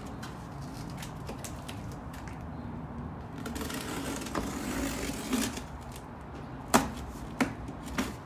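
Cardboard shipping box being opened by hand: scattered small clicks, a rough tearing, rustling stretch in the middle, then three sharp knocks near the end.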